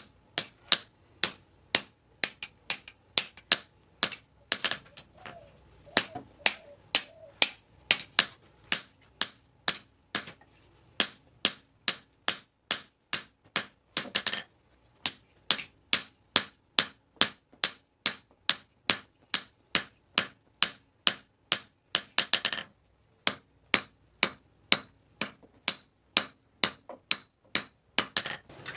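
Hand hammer striking a forged steel meat cleaver blade on an anvil block: a steady run of ringing metal blows, about two to three a second, with a couple of short pauses, as the blade cools from red heat.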